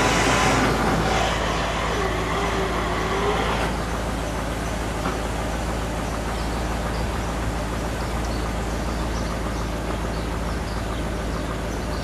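1959 Ford Skyliner's retractable-hardtop mechanism running as the deck lid closes down over the stowed roof: a loud whirring with a wavering whine that cuts off about four seconds in. Under it, the car's 352 V8 runs steadily at idle.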